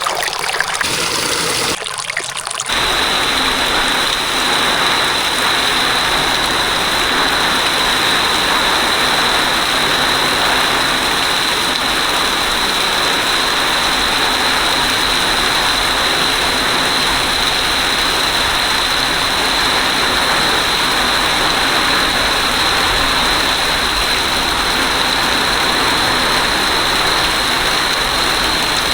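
Floodwater rushing, a loud steady rush that sets in sharply about three seconds in.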